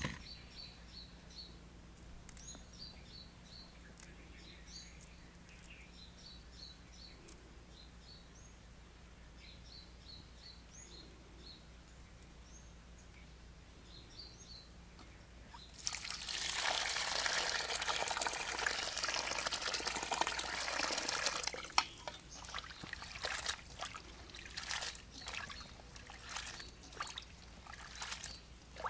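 Water from a hose pouring into a stainless steel bowl of crickets for several seconds about halfway through, then splashing and sloshing as hands wash the crickets in it. Before the pour there is only faint high chirping.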